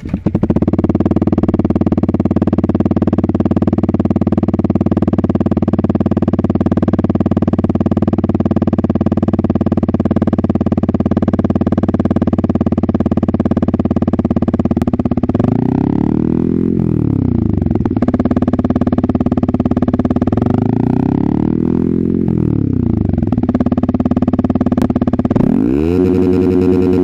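Yamaha XSR 155's single-cylinder engine breathing through an SC Project exhaust with its silencer insert fitted, idling steadily for about fifteen seconds, then revved and let back down three times.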